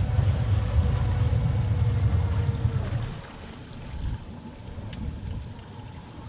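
Fishing boat's outboard motor running, then throttled back about three seconds in to a quieter rumble as the boat comes off plane to stop over a school of fish.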